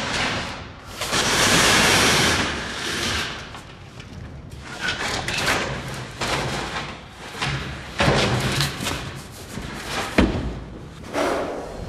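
Bakery work noise: irregular knocks, thumps and clatter, with a loud hissing rush about a second in and a sharp thump near the end.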